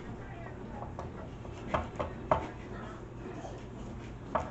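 Kitchen knife cutting a piece of ginger root: three sharp knocks about two seconds in and one more near the end.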